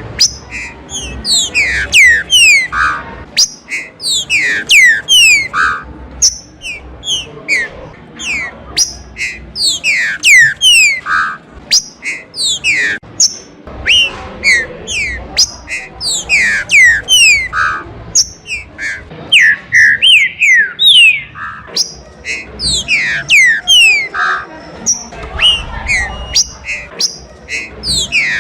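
Green-winged saltators (trinca-ferro) singing: repeated phrases of loud, quick, falling whistled notes.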